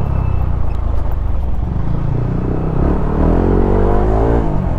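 Motor scooter engine running as it rides through traffic, with the pitch rising about three seconds in as the throttle opens and easing off near the end.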